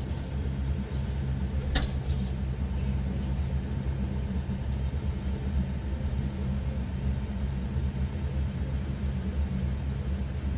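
Detroit Diesel Series 60 12.7-litre inline-six diesel turning over with a steady low rumble during a cold, hard first start after almost three years sitting. A sharp click comes about two seconds in.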